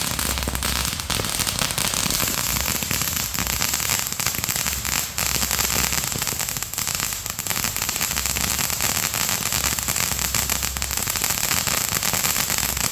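Fireworks crackling densely and without a break: a rapid mass of small pops close together over a hiss.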